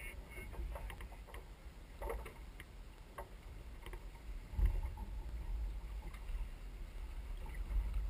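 Wind rumble on the microphone of a sailing yacht under way, swelling about halfway through and again near the end. Scattered light clicks and knocks of deck gear come in the first few seconds.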